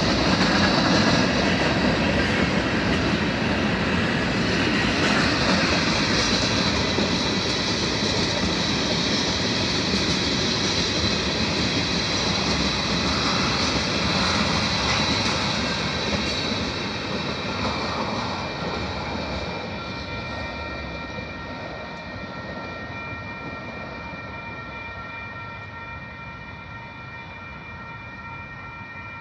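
Train passing close at speed, the noise of its cars on the rails fading steadily over the last third as it moves away. As it fades, the steady ringing of the grade-crossing warning bells is left.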